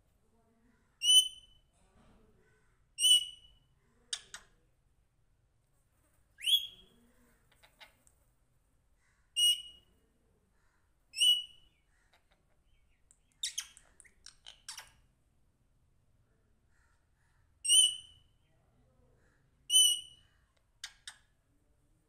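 A caged rose-ringed parakeet whistling: seven short, clear whistled calls about two seconds apart, each a quick single note. A few sharp clicks and brief raspy bits fall between them.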